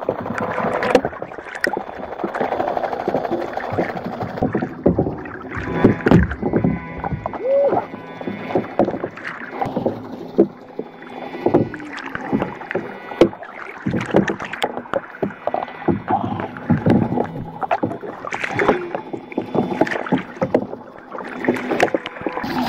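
Water splashing and sloshing, with many irregular knocks and clicks.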